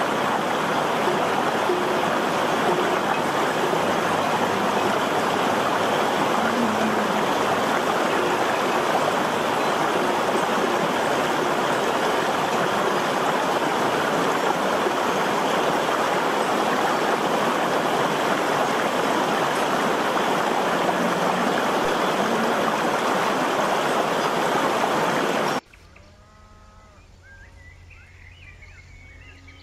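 Shallow mountain river rushing steadily over rocks. It cuts off suddenly near the end, leaving a much quieter background with a low hum and a few faint animal calls.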